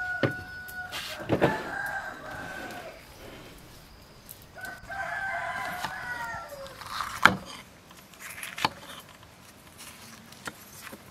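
A rooster crowing twice, each crow about two seconds long, the second falling off at its end. Between and after the crows come a few sharp knocks of a knife on a wooden chopping board, the loudest a little after the second crow.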